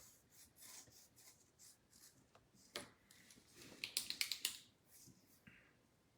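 Faint handling noise of trading-card packaging: soft rustling, a sharp click near three seconds in, then a quick run of crisp clicks and crinkles around four seconds in.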